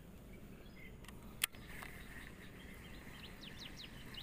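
Small birds chirping in short, repeated high calls over faint outdoor background noise, with a single sharp click about a second and a half in.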